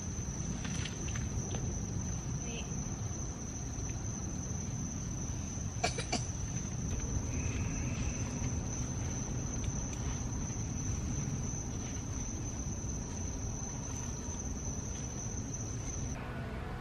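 Night insects, crickets, trilling steadily at one high pitch over a low rumble, with a couple of faint clicks about six seconds in.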